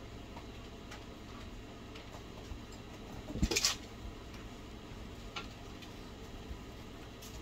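A few faint, scattered clicks and one brief scratchy rustle about halfway through, over a steady low hum.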